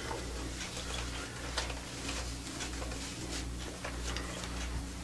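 Faint handling sounds as braided cord chin straps are tied and pulled under the chin: a few soft, scattered clicks and rustles over a steady low electrical hum.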